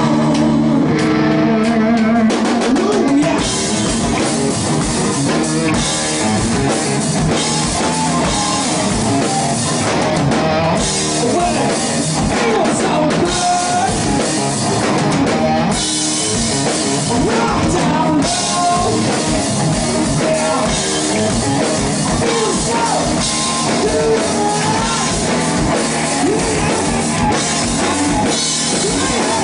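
Live hard rock band playing loud: distorted Les Paul-style electric guitar through Marshall amplifiers over a driving drum kit.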